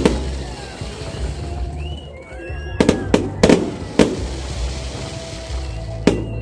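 Fireworks display: sharp bangs with echoing tails, a quick cluster about three seconds in, another bang a second later and two more near the end, over a steady low rumble.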